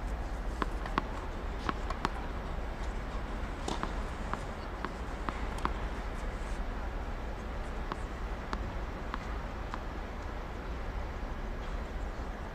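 Tennis between points on a hard court: scattered light taps at uneven intervals, from balls bouncing and shoes on the court, over a steady low hum.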